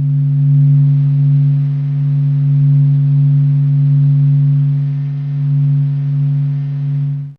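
A steady low electronic-sounding hum with a light hiss, swelling and easing gently and then cutting off abruptly near the end, presented as what the Sun would sound like if its sound could reach Earth.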